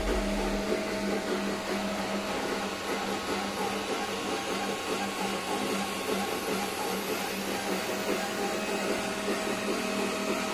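Steady machine whir with a constant hum tone, as from a small electric motor or fan running.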